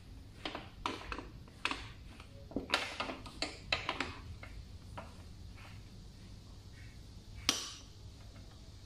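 Metal tools and parts clinking and tapping during a shock absorber replacement: a quick run of sharp clinks over the first few seconds, then one louder ringing clink near the end.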